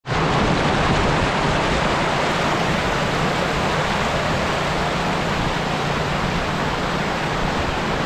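Steady rushing of flowing water, an even, unbroken noise that starts abruptly.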